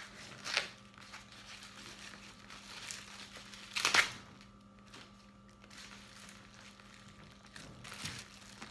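Clear plastic wrapping crinkling and rustling as it is pulled off a leather bag strap, with a few short louder rustles, the loudest about four seconds in.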